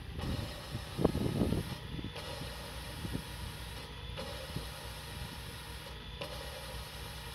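Valve being lapped by hand on its seat in a Detroit DD15 cylinder head: gritty scraping and clicking of valve grinding compound between valve face and seat, busiest about a second in, then a few single clicks as the valve is worked open and shut. A steady low rumble runs underneath.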